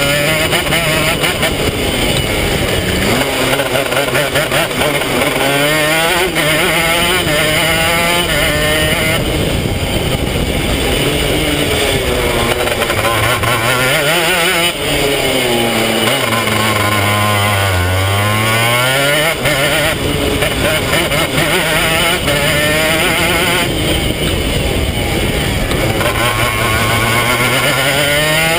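A 250cc two-stroke racing kart engine at race pace, its revs repeatedly climbing and falling through the corners. The pitch drops lowest about two-thirds of the way through for a slow corner, then climbs again.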